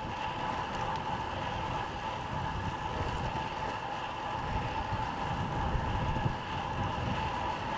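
Road bike rolling on wet tarmac: a steady hiss of the tyres on the wet road.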